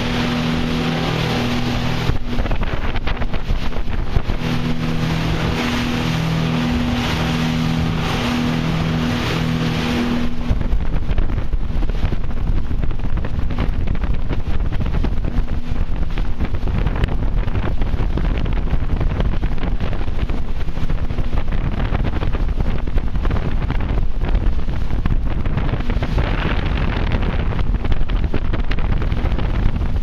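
Twin outboard motors running the boat at speed, a steady engine drone over the rush of wake water. About ten seconds in the engine drone drops away, and heavy wind buffeting on the microphone takes over, a loud low rumble.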